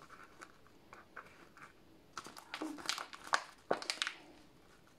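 Thin plastic nursery pot crinkling and crackling as it is squeezed and twisted to free a rootbound primrose, with soil and leaves rustling. Faint small clicks at first, then a burst of sharp crackles in the second half.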